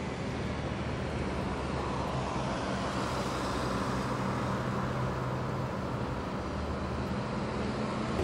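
Street traffic: cars driving past on the road, a steady wash of tyre and engine noise that swells a little in the middle.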